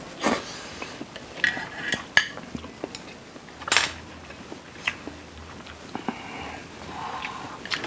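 Chopsticks and a spoon clicking and clinking against plates and bowls during a noodle meal, in scattered sharp clicks, with a slurp of noodles near the start.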